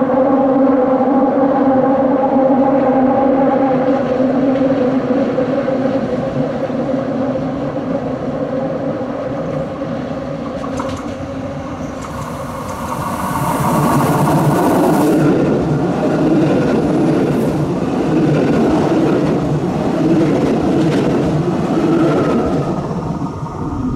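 Two coupled ETi 400-series electric multiple units approaching on the rails and passing close by. At the start a steady pitched drone fades out over several seconds. About twelve seconds in there is a burst of hiss, and the running noise of wheels and motors then grows louder until the train goes by near the end.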